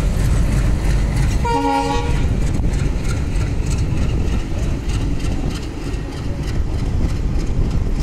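Indian Railways ICF passenger coaches rolling past on broad-gauge track, with a steady low rumble and wheels clattering over the rail joints. A brief horn note sounds about one and a half seconds in.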